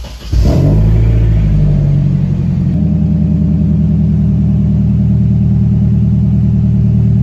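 Nissan 240SX (S13) engine being started: brief cranking, then the engine catches about a third of a second in and runs loud and steady at idle, settling slightly about three seconds in.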